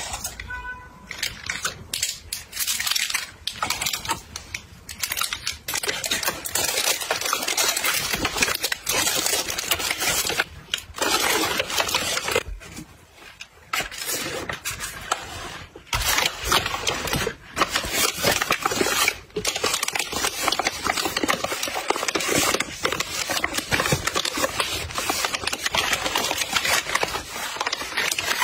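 Close-up crinkling and rustling of plastic packaging as hands handle wrapped sweets, a mailer bag and a zip-lock plastic bag, made of many short crackles. The sound briefly drops away about 13 seconds in.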